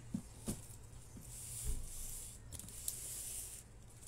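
A parcel being handled: rustling of its packaging with a few light knocks and a soft thump about two seconds in.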